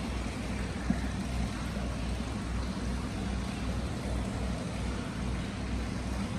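Hot spring water pouring steadily into an indoor tiled bath from a stone inlet basin, a continuous splashing rush with a low rumble underneath and one small tap about a second in.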